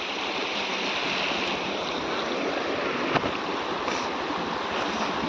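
Steady rush of flowing water, with a single sharp click about three seconds in.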